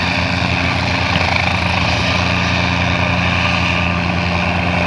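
P-51D Mustang's Packard Merlin V-12 engine running steadily at low power as the fighter taxis, propeller turning.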